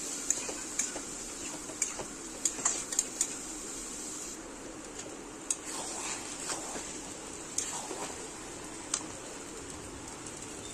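Mushrooms sizzling in a wok while a wooden spatula stirs them, with a steady hiss and scattered short knocks and scrapes of the spatula against the pan.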